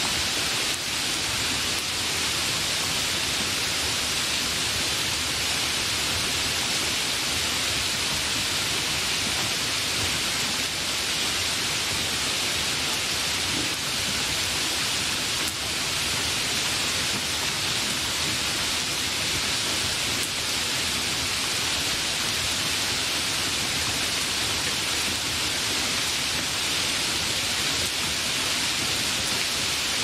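Rain falling steadily, an even, unbroken rush of rainfall with no thunder or distinct drops standing out.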